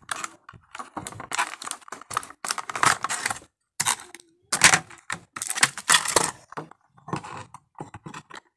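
Thin clear plastic blister packaging handled by hand: irregular crackles, crinkles and clicks as the action figure is slid out of the bubble and the bubble is set down.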